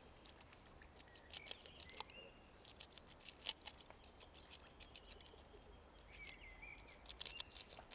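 White domestic goose nibbling and tearing at a lettuce leaf held in a hand, its bill making a faint, scattered run of crisp clicks and crunches.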